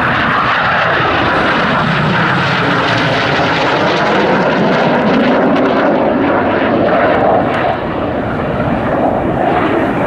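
Jet noise from a BAE Hawk T1 and its single Rolls-Royce Turbomeca Adour turbofan flying a display pass. It is a loud, steady rush of noise whose tone slowly sweeps as the jet climbs and banks, with a brief dip in level about three-quarters of the way through.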